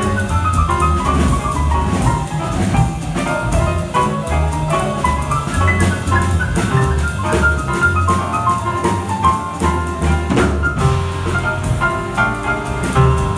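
Jazz big band playing live: saxophones and brass over piano, upright bass and drum kit, with quick runs of notes over a steady bass line.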